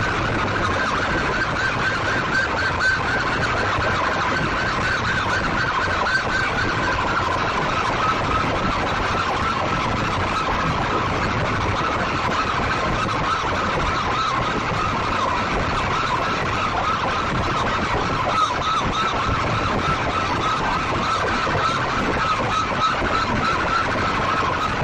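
Stacked horn loudspeakers of a competition sound system blaring a continuous, wavering, siren-like wail.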